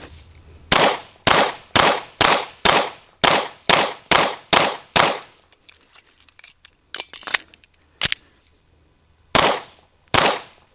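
Staccato P 9mm pistol fired in a quick string of about ten shots, roughly two a second, then after a pause of a few seconds a few more single shots.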